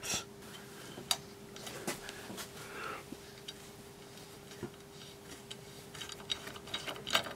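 Knurled metal collar of an Aladdin Easy Fit isolator being unscrewed by hand, counterclockwise: faint scattered clicks and ticks of metal and fingers, with a few louder clicks near the end, over a faint steady hum.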